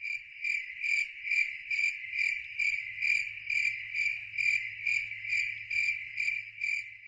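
Cricket chirping: one high note repeated steadily, about twice a second.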